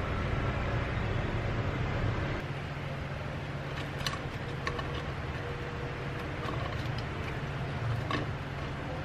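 Baguette slices toasting in a nonstick wok on the stove: a steady hiss and low hum, with a few sharp clicks and taps about four seconds in and near the end as chopsticks turn the slices against the pan.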